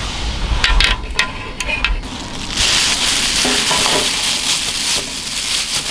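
Cooking at a camping gas burner: a few light knocks as the aluminium mess tin of soup is handled. Then, from about two and a half seconds in, a loud hissing, crackling noise lasting a couple of seconds as soaked rice cakes are squeezed out of their plastic bag into the tin.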